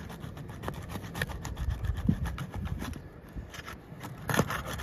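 Asphalt roof shingles being loosened and pried up from their sealed rows, giving irregular scraping, rubbing and crackling with sharp clicks, and a louder cluster of clicks near the end.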